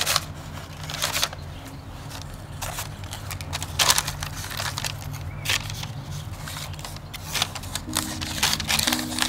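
Baking parchment crinkling and rustling in a metal tray as a sheet of pastry dough is laid over the filling and pressed down, in many short crackly rustles over soft background music.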